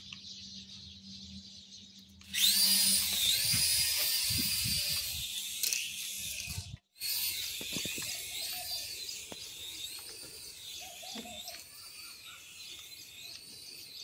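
Small electric rotor motors of a toy RC helicopter spinning up about two seconds in and running as it flies, a high whine whose pitch wavers with the throttle. The whine breaks off for an instant near the middle.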